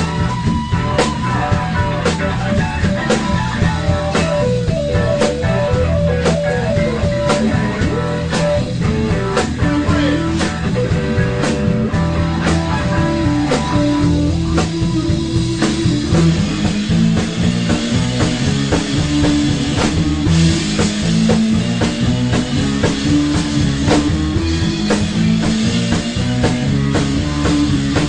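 Rock band music: guitar and drum kit over a steady beat, with a melody line that steps along in a higher range and drops lower after about ten seconds.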